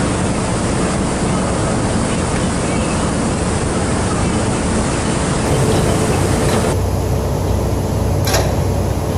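Steady loud rushing noise of wheat being unloaded from a hopper railcar into a receiving pit, grain running through the gate and grates with plant machinery running, and one sharp knock near the end.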